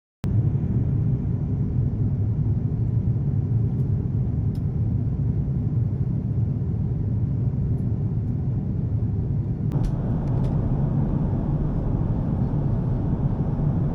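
Steady, loud low rumble that starts abruptly, with a rise in higher-pitched noise about ten seconds in and a few faint ticks.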